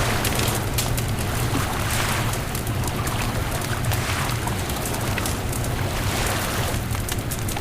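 Beach bonfire crackling, with frequent small pops and snaps over a steady low rumble.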